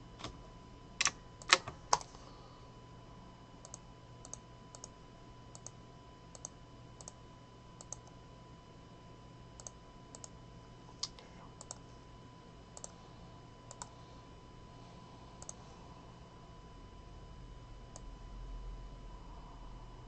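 Scattered computer keyboard and mouse clicks, irregular, with a few louder ones in the first two seconds and fainter ones after, over a faint steady hum.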